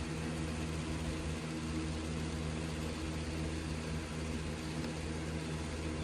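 A steady low hum and hiss inside a car's cabin: the BMW 335i's turbocharged inline-six engine idling, with the ventilation running.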